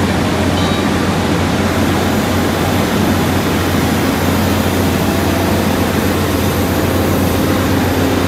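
Steady, unbroken drone of the running machinery of a mobile flash butt rail welding unit: a constant low hum under a broad hiss, with no distinct knocks or strikes.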